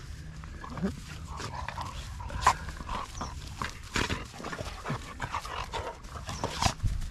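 Dogs at rough play: scuffling and many short sharp knocks, with brief vocal sounds and panting.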